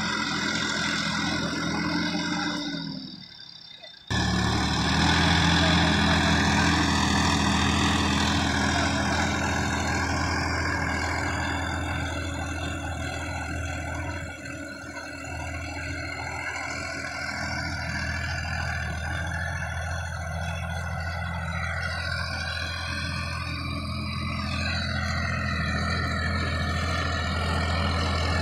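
Sonalika DI-50 RX tractor's diesel engine running steadily under load while pulling a tiller through dry field soil: a low, even drone. The sound briefly drops out about three seconds in, then picks up again.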